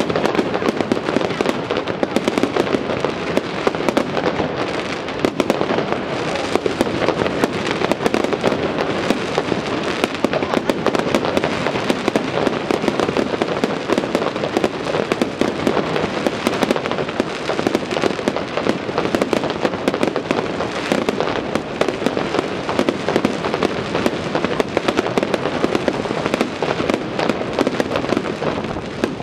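Aerial fireworks going off in a dense, unbroken barrage of bangs and crackle, many reports a second with no pause.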